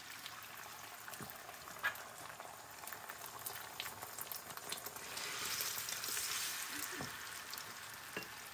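Beaten eggs frying in hot oil in a nonstick pan, a steady sizzle with a few faint clicks, growing louder about five seconds in as they bubble up and are stirred.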